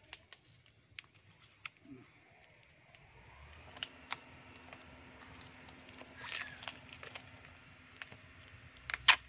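Scissors snipping and packing tape crinkling and tearing as a small tape-wrapped parcel is cut open, in scattered short clicks and rustles, with a sharp loud snip just before the end. A faint steady hum runs underneath from about three seconds in.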